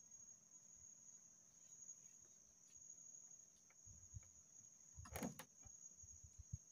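Near silence over a steady, high-pitched insect drone, with a brief couple of faint clicks about five seconds in.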